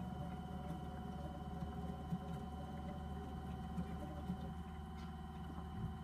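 Miniature LG front-loading demo washing machine running its rinse-spray cycle: a small motor's steady hum and whine as the drum turns, with water spraying inside.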